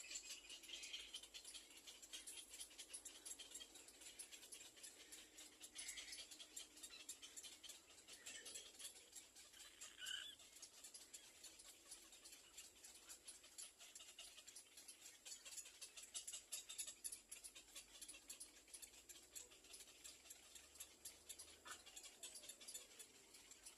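Faint rustling and light ticking of nestling birds stirring, with a few soft, brief high peeps.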